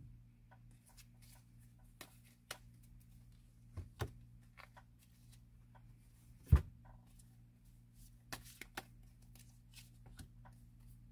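Tarot and oracle cards being handled and laid down on a cloth-covered table: scattered light taps and slides, with one louder knock about six and a half seconds in.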